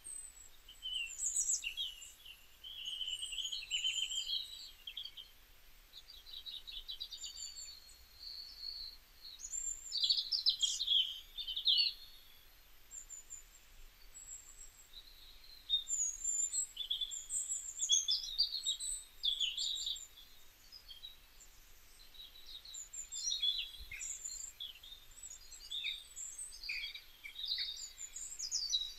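Small birds chirping and twittering in quick, high, irregular bursts of calls and trills, with a short lull about halfway through.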